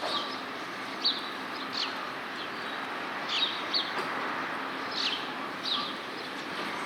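Birds calling in short, high, falling chirps, singly or in quick pairs about every second, over a steady background hiss.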